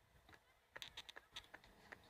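Faint, irregular sharp clicks: a few at first, then several a second from a little under halfway through.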